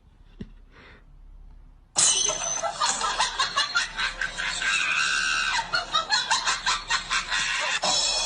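Quiet for about two seconds, then a sudden loud burst of laughing and shrieking voices, pulsing several times a second.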